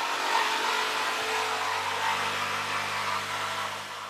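Mafell P1cc jigsaw running steadily with its blade cutting through a wooden board, a steady motor hum under the sawing noise; the sound fades out near the end.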